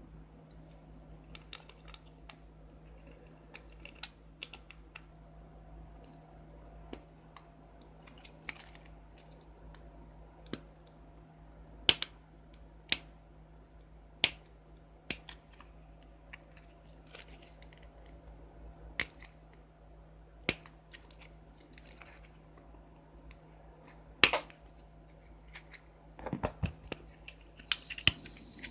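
Scattered sharp clicks and taps of small plastic parts and tools being handled on a camcorder, with the loudest about 12, 13, 14 and 24 seconds in, over a faint steady hum.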